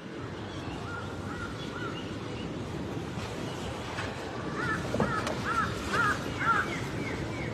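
Short, repeated caw-like animal calls: a few faint ones early, then a quick run of about five louder calls past the middle, over a steady background murmur.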